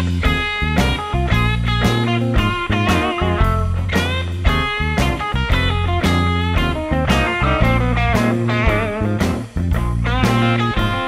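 Instrumental background music: a lead melody with wavering, bending notes over a steady beat.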